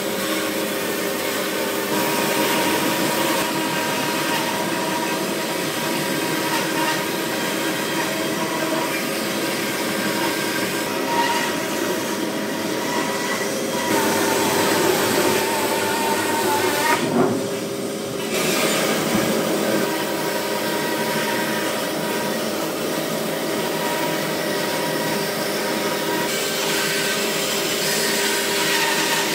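Bandsaw running and cutting a curve through a wide wooden panel: a steady machine sound with a constant hum and whine, broken briefly about seventeen seconds in.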